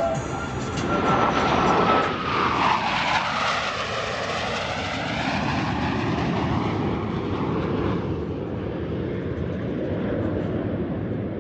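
Blue Angels F/A-18 Super Hornet jets making a low pass. The sound is loudest about two seconds in, with a whine that drops in pitch as they go by, then a rumble that fades away.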